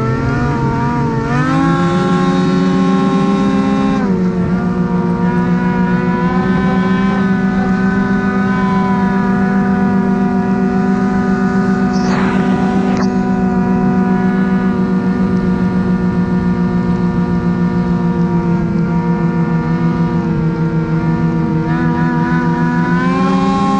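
Ski-Doo Freeride snowmobile's two-stroke engine running at high revs under throttle. The pitch climbs over the first couple of seconds, holds steady as the sled runs across the snow, and climbs again near the end.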